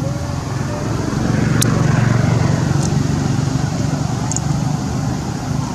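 Steady low outdoor rumble that swells from about a second in to about three seconds in, with a few faint sharp ticks over it.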